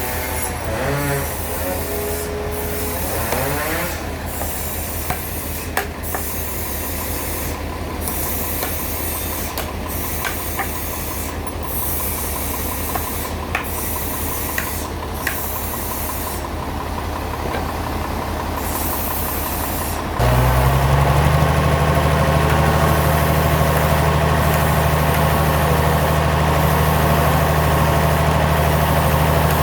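Sawmill machinery's engine running steadily, with scattered knocks and clanks. About two-thirds of the way in, it suddenly steps up to a louder, heavier steady drone, as the machine comes under power or the saw engages.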